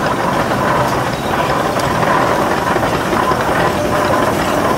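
Advance-Rumely steam traction engine rolling past at low speed, its gearing and moving parts giving a steady mechanical clatter.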